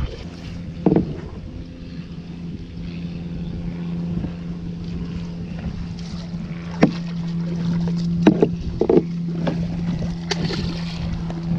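A motor hums steadily at one pitch from about a second in, under wind on the microphone. A few sharp knocks land on the small fibreglass boat, the loudest about two-thirds of the way through.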